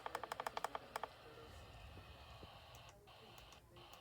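Quick run of computer keyboard typing, about a dozen sharp clicks in the first second, then faint room tone.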